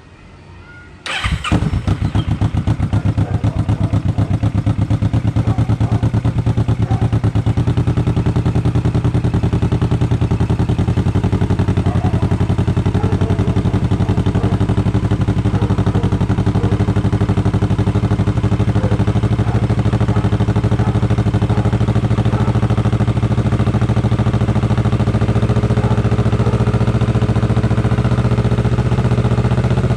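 Kawasaki Vulcan S 650 parallel-twin engine breathing through an aftermarket Orion full-system exhaust: it fires up about a second in and settles straight into a steady, evenly pulsing idle.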